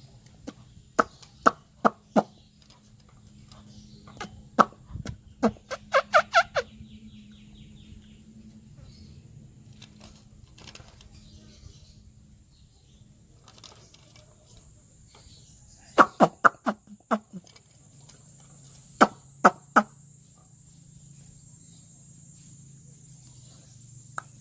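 Bird calls: short, sharp clucking notes in quick runs of three to six, with a faint steady low hum underneath.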